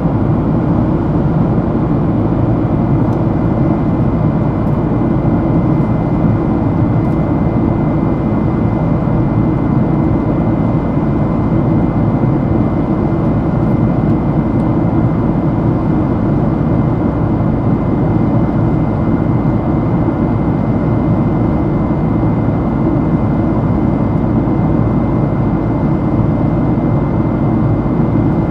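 Steady in-cabin drone of a Boeing 767-300's GE CF6 turbofan engines running at constant power, a deep rumble with a thin steady whine above it.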